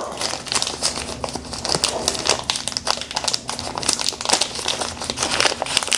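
Packaging crinkling and rustling continuously as it is handled and opened.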